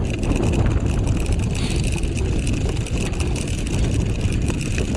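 Four-dog dryland rig rolling along the trail behind the running team: a steady rumble of wheels on the ground with wind on the microphone.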